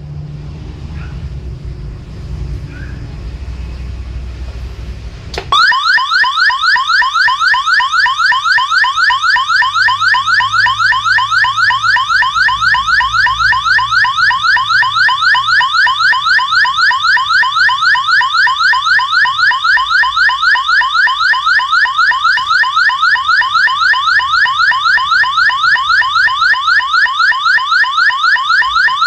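Electronic siren-like tone from an AT89S52 microcontroller driven through an L298N motor-driver board. It is a rapid train of rising pitch sweeps, several a second, that starts suddenly about five seconds in and repeats steadily. Before that there is only a low hum.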